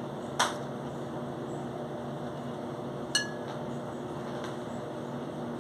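Two sharp clinks of tableware, about three seconds apart, the second ringing briefly. A steady low hum sits underneath.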